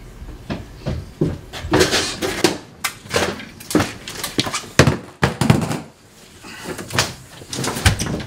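A door and someone walking in on a wooden hallway floor: an irregular string of knocks, thuds and footsteps on the floorboards.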